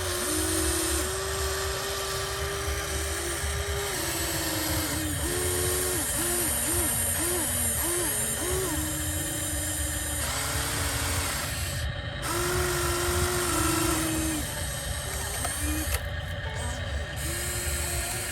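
Small electric gear motors of radio-controlled toy construction machines whining, starting and stopping with the pitch rising and falling in short sweeps, several quick ones in a row in the middle, over a steady low hum.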